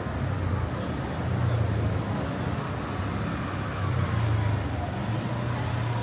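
Street traffic running past. The engine hum swells twice, about a second and a half in and again around four seconds, as vehicles go by.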